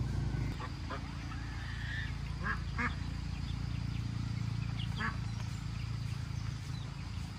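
A few short animal calls, two of them close together, over a steady low hum.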